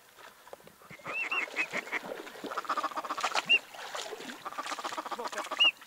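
Duck quacking: a few short quacks about a second in, then a fast, chattering run of quacks.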